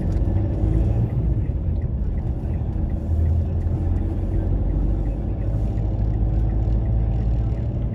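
Steady low road rumble of a moving car's engine and tyres, heard from inside the cabin.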